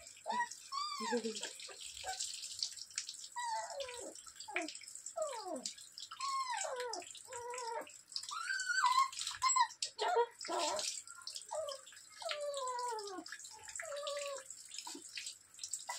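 A small puppy whining and yelping over and over while being bathed, each cry sliding downward in pitch, about a dozen of them, over the hiss and splash of water running from a tap.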